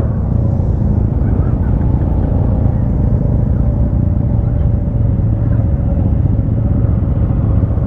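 A motor vehicle on the move: a steady low engine and road rumble with a faint constant drone above it.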